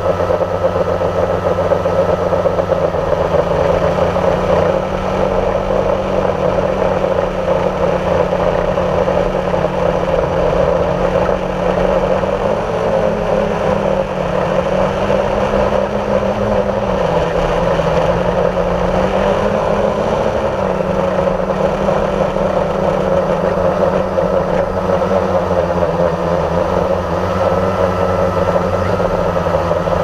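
Steady hum of a small camera aircraft's motor and propellers, heard from the camera riding on it. Its pitch rises and falls a few times about halfway through.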